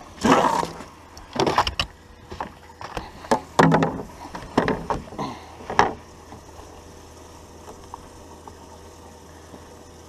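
Irregular knocks, bumps and rustles of handling on a boat, a dozen or so over about six seconds, then only a faint steady low hum.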